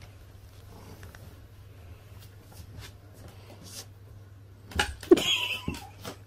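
A steady low hum with faint ticks. About five seconds in come a sharp knock and a short scuffle as a cat drops onto a wooden floor.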